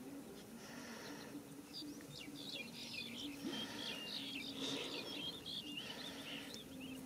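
Small birds chirping and twittering in many quick short notes, busiest in the middle, over a faint low drone.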